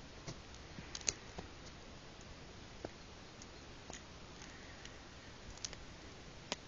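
Faint steady hiss with a handful of irregular small clicks and ticks scattered through it.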